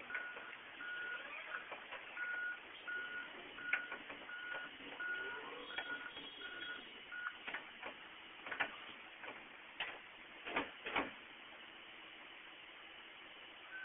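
A vehicle's reverse warning alarm beeping at one steady pitch, about three beeps every two seconds, stopping about seven seconds in. Scattered sharp knocks and clatters throughout, the loudest near the end.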